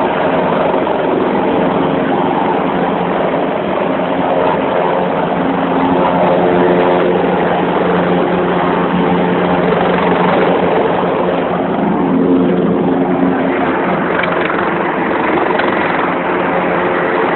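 Eurocopter EC-725 Cougar helicopter running close by, its turbines and rotor making a loud, steady drone with a constant hum.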